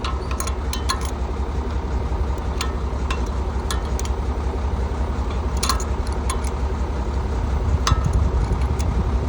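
Tractor engine running steadily with a low, even pulse, with scattered sharp metallic clicks and clinks of tools and parts being handled over it.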